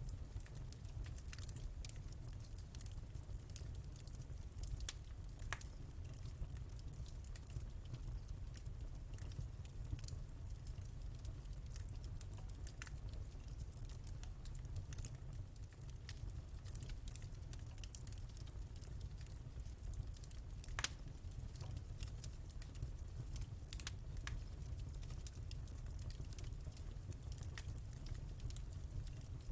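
Wood fire crackling in a fireplace: scattered irregular pops and snaps over a steady low rumble, with one sharper pop about two-thirds of the way through.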